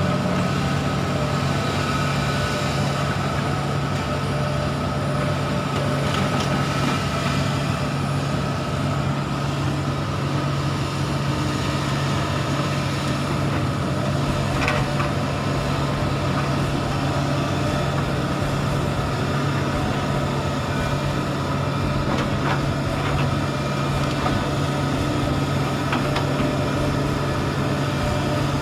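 Heavy diesel engine running steadily at a constant speed, a deep even hum with no revving.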